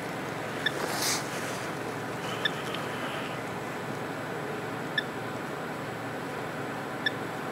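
Four short, faint electronic beeps at uneven intervals from a handheld light-up ghost-detector gadget as it flashes in response to a question, over a steady hiss, with a brief rustle about a second in.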